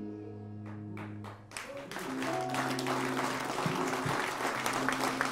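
The band's last low chord rings out and fades, then audience applause starts about a second and a half in and carries on.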